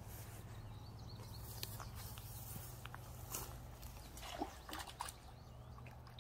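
Faint sloshing and dripping of shallow water as a fishing landing net is dipped in and moved about at the water's edge, with scattered small splashes and clicks, busiest in the second half, over a steady low hum.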